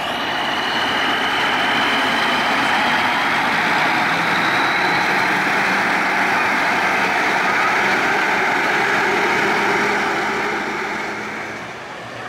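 Diesel engine of a cabover semi tractor running as the truck drives close past, with a thin high whine that rises over the first few seconds. The sound drops away about eleven seconds in.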